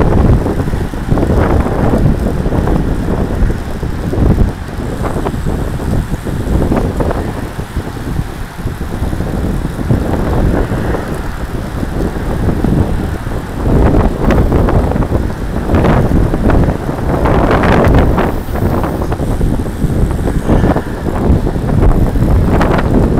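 Wind buffeting the microphone of a camera on a moving road bike, a loud rumbling rush that swells in gusts, mixed with tyre and road noise from the bike and the bunch of cyclists around it.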